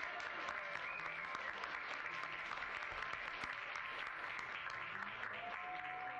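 Applause: a dense, steady patter of many hand claps, with a faint held tone near the end.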